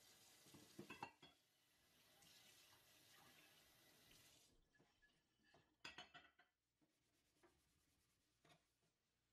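Faint running tap water splashing into a stainless-steel sink while dishes and glassware clink as they are rinsed. The water stops about four and a half seconds in, followed by a few more clinks and knocks.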